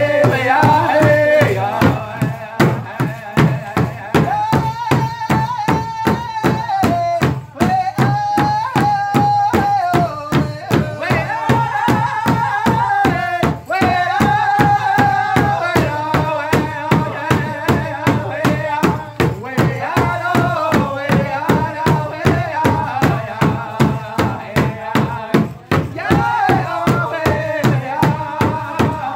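Powwow drum group singing together in a high-pitched style while striking a large hide-covered powwow drum with beaters in a steady, even beat. The sung phrases start high and step downward.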